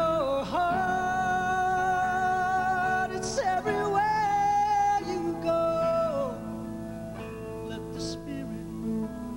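A man singing long, held notes with a slight vibrato while accompanying himself on a cutaway classical-style acoustic guitar. About six seconds in, the sung line ends and the guitar carries on more quietly before the voice comes back in.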